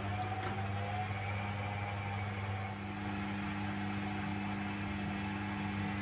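Beko front-loading washing machine running with its door open, the drum motor giving a steady hum with a faint whine that rises slowly over the first couple of seconds.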